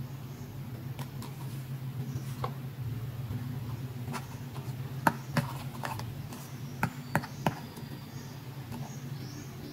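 Small hard plastic toy handbags clicking and tapping as fingers handle and swap them, a handful of sharp clicks with the loudest about halfway through, over a steady low hum.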